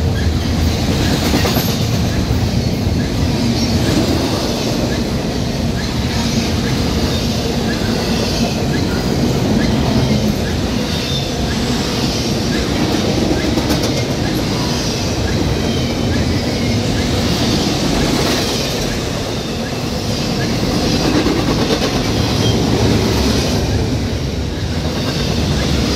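Loaded double-stack intermodal well cars of a freight train rolling past at close range, a steady rumble of steel wheels on the rails.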